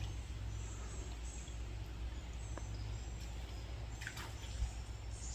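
Quiet outdoor ambience: a few faint, short bird chirps over a low, steady rumble.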